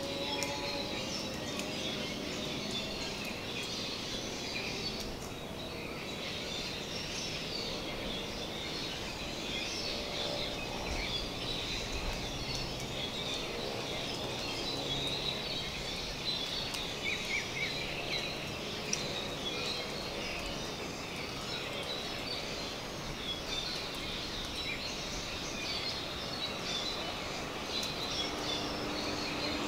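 Tropical woodland ambience: many birds and insects chirping steadily and densely, with a faint low hum underneath.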